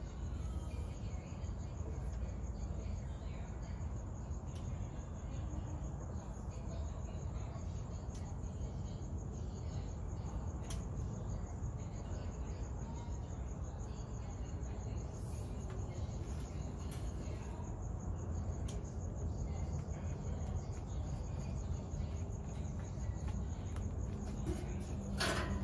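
Crickets chirping steadily in a continuous high trill over a low steady rumble. Near the end there is one sharp knock.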